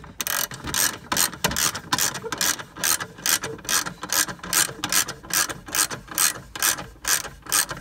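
Socket ratchet wrench clicking in a steady, regular run as its handle is swung back and forth, tightening the bolt on a car battery's hold-down bar.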